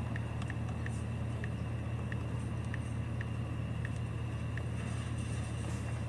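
Car engine idling, heard inside the cabin while stopped at a red light, as a steady low hum. A faint, regular ticking at about two ticks a second runs over it and stops a little over four seconds in.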